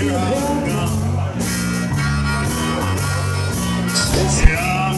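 Live band playing a rock song through a PA: bass, guitar and drums with a singing voice. A short sharp thump near the end.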